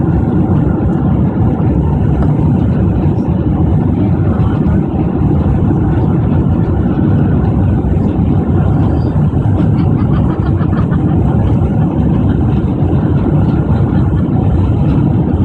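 Steady noise of a Boeing 767-400ER's jet engines and airflow heard inside the passenger cabin on final approach, a constant low rumble with no distinct bumps or changes.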